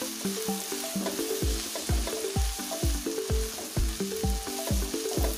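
Ginger-garlic paste sizzling as it fries in hot mustard oil in a non-stick pan, stirred with a spatula. It plays over background music with a steady beat; a bass drum joins about a second and a half in, about two beats a second.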